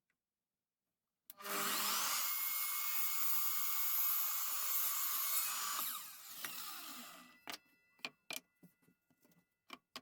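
Power saw cutting through wood: the motor starts about a second in, cuts steadily for about five seconds, then winds down. A few light knocks follow near the end.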